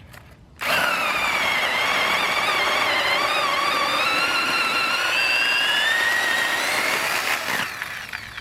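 Corded electric chainsaw lopper starting about half a second in and running as its chain cuts through a piece of wood. Its whine sags as the blade takes the load, climbs back near the end as it cuts through, then stops.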